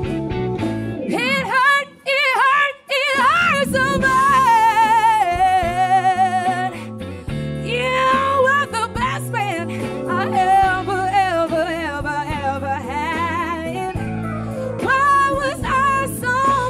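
Live band playing: a female vocalist sings a wavering, vibrato-laden melody over keyboards, bass, electric guitar and drums. The music drops out twice for a moment, about two and three seconds in.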